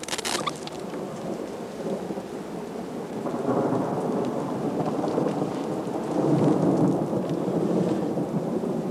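Thunder from a nearby thunderstorm: a short crackle right at the start, then a deep rolling rumble that builds about three seconds in, is loudest around six to seven seconds in, and is still rolling at the end.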